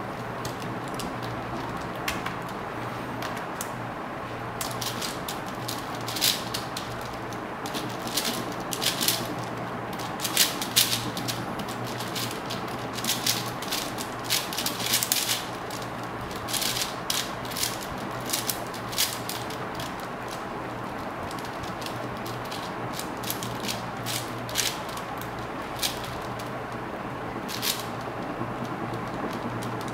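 Plastic 4x4 speed cube turned rapidly by hand, its layers clacking in quick, irregular runs of clicks, over a steady low hum.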